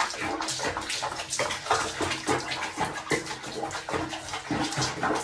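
Water sloshing and splashing lightly in a basin as a cat sits in it during a bath, with small irregular splashes.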